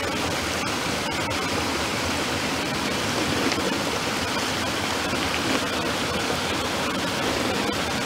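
Small spring spouting from a crack in a rock face and splashing onto mossy stone close by: a steady rush of falling water.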